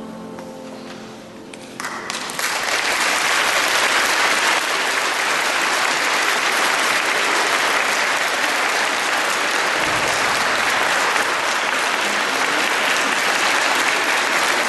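The choir's final chord fades out, and about two seconds in an audience breaks into applause that keeps up steadily.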